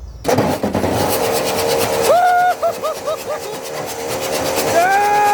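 Leyland truck diesel engine being cranked over by its starter motor with all injectors removed, so it spins freely without compression: a loud, steady whirring that starts suddenly just after the start. A higher whistling tone comes and goes twice over it, with a few short chirps after the first.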